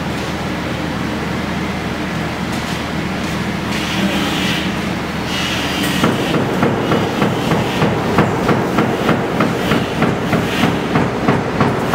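Steady machine noise with a low hum; about six seconds in an even knocking begins, roughly two to three knocks a second.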